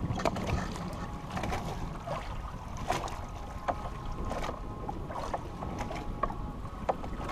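Steady low rumble of wind and water around a small boat on open water, with scattered light clicks and knocks.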